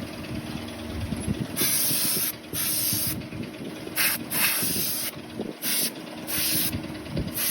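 A run of short hissing bursts, about eight, each lasting under a second with brief gaps between them, like repeated sprays. They start a little over a second in, over a low background rumble.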